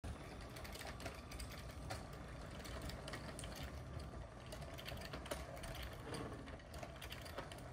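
Motorised LEGO passenger train running over a plastic double slip crossover: a faint, steady motor whir with many small irregular clicks as the wheels cross the rail joints and frogs. It runs smoothly through the crossover.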